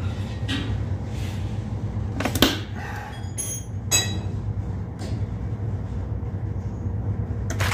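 Steady low hum of cold-room refrigeration equipment, with two sharp clicks about two and a half and four seconds in, the second with a few brief high tones. A louder rushing hiss starts just before the end.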